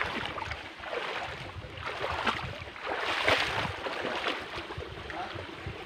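Irregular crunching and scuffing of footsteps over rocks and dry leaves along a creek bed, over a steady rushing noise.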